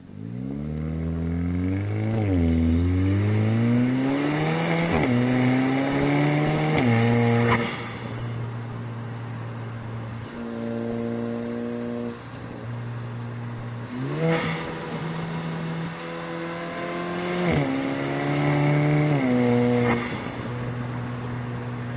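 Kia Forte GT's 1.6-litre turbocharged four-cylinder engine pulling hard twice, its pitch climbing steadily for several seconds (with a brief dip about two and a half seconds in) and then dropping back to a steady run; the second pull starts about fourteen seconds in and eases off near the end.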